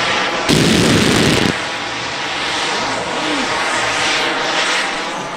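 A rapid volley of pyrotechnic bangs and crackles lasting about a second, starting about half a second in, as a row of coloured-smoke charges fires. Under and after it, the steady drone of model aircraft flying overhead.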